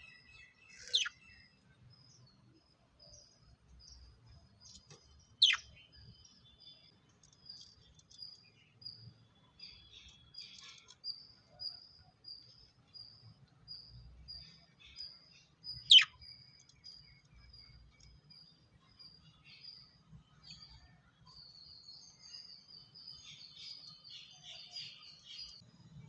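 Lovebirds chirping: a run of short, high chirps repeating about twice a second, broken three times by a loud, shrill call that falls in pitch, with busier chattering near the end.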